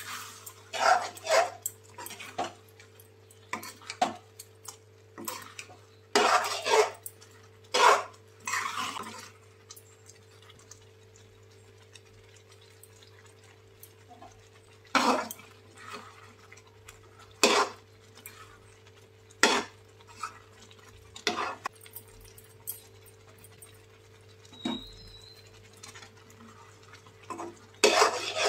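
Steel spoon stirring and scraping thick pav bhaji bhaji in a metal pan: irregular scrapes and knocks of metal on the pan, some in quick clusters, over a faint steady hum.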